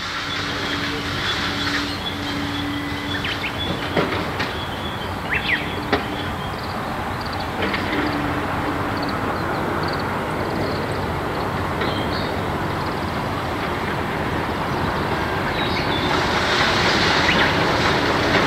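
A train running on rails: a steady rumble of wheels on track with thin wheel squeal and a few sharp clicks, growing louder near the end.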